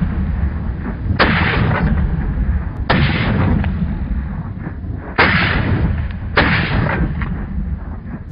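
Shotgun blasts at passing ducks: four sharp reports at uneven intervals over a continuous heavy low rumble.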